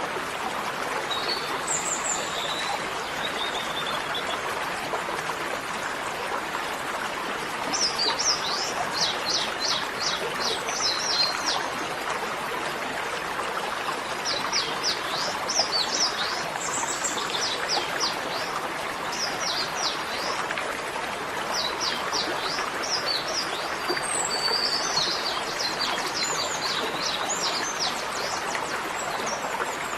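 Small songbird calling in quick runs of high, downward-sweeping chirps, in repeated bursts of a second or two, over a steady rushing noise like running water.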